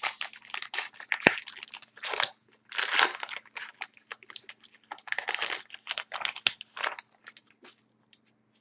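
Plastic-foil trading-card pack wrapper crinkling and crackling as a card pack is handled and torn open. The crackles come irregularly and die away about a second before the end.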